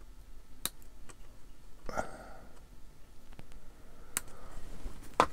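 Small plastic model-kit parts and hobby tools being handled on a workbench: a few sharp, separate clicks and taps, the loudest near the end, with a brief rustle about two seconds in.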